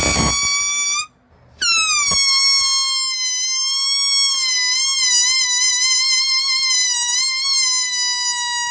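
Air squealing out of a balloon's stretched neck as it slowly deflates. One high squeal with a rush of air ends about a second in. After a short gap a new squeal starts, dips in pitch, then holds nearly steady with slight wavers.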